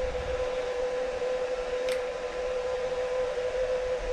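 Steady electrical machine hum from the workshop's milling machine set-up, one even tone, with a single light metallic click about two seconds in as tooling is handled.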